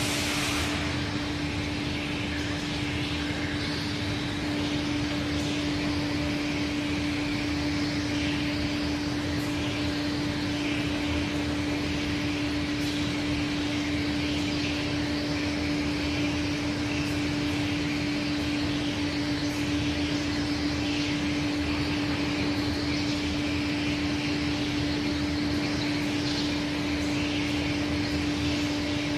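A 1988 Aschersleben guideway grinding machine running, its grinding head working on a workpiece: a steady machine hum with one constant tone, under an uneven grinding hiss.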